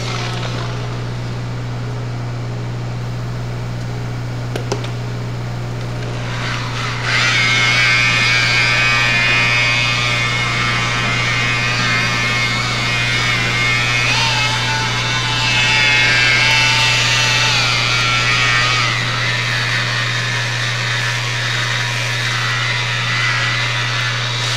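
Electric rotary polisher running with a high whine that wavers slightly in pitch, polishing the blended clear coat to take out the roughness where it tapers. The whine comes in about a quarter of the way in, over a steady low hum that runs throughout.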